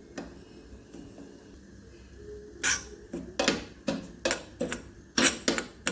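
Metal spoon stirring semolina roasting in ghee, scraping and knocking against the pan. It is faint at first, then about halfway through comes a quick run of about nine sharp scrapes and clicks.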